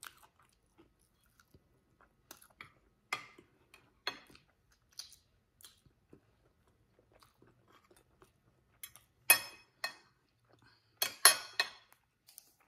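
Chewing a cornmeal-crusted fried salmon croquette up close: soft crunches about once a second, then a few louder crisp crunches near the end.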